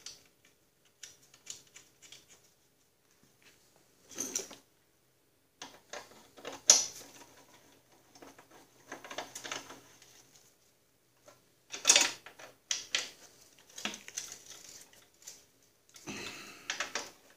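Light metal clicks and rattles of an L-shaped hex key turning a fender bolt in a Snapper rear-engine rider's steel frame. They come in short clusters with quiet gaps between.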